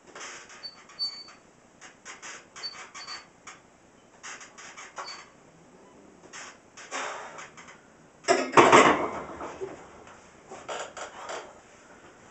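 Short creaks, squeaks and clicks from a loaded barbell and home-made wooden bench press rack during a set of bench presses, with one loud knock a little past eight seconds in.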